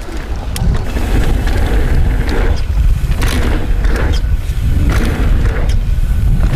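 Mountain bike rolling fast over dirt rollers and jumps: knobby tyres rushing on packed dirt in surges about once a second, with short rattling clicks from the bike, under a heavy wind rumble on the chest-mounted camera's microphone that builds over the first second as speed picks up.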